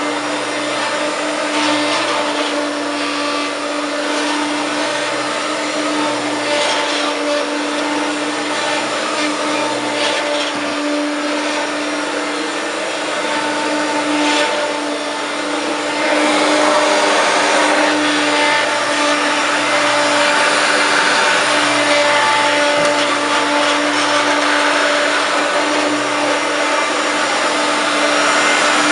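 A 1993 Hoover Turbopower 1 U2798 vacuum cleaner running at a steady pitch. About halfway through it gets louder and hissier.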